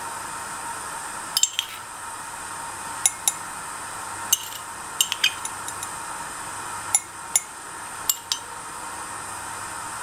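Metal spoon clinking against a glass jar and ceramic cups while scooping granular powder: about a dozen sharp clinks, often in quick pairs, over a steady hiss.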